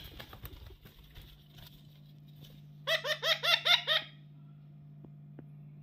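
A parrot giving a rapid run of about eight short, pitched calls lasting about a second, near the middle, over a steady low hum; a few faint clicks follow.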